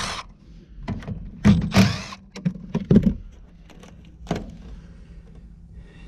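A few sharp knocks and clicks of metal parts and a hand tool being handled as a threaded fitting is unscrewed from an old heat pump cabinet, the loudest about one and a half and three seconds in, over a faint steady low hum.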